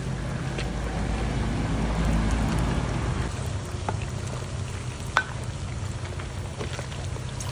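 Pork deep-frying in a wok of hot oil, a steady sizzle over a low rumble, while a metal ladle stirs it and clinks against the wok a few times, the sharpest clink about five seconds in.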